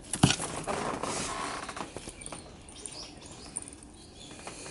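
A sharp knock just after the start, then rustling and scratching as a cat bats and tugs at a tinsel pompom toy on a wand against wood and cardboard, fading to fainter scratches and small high squeaks.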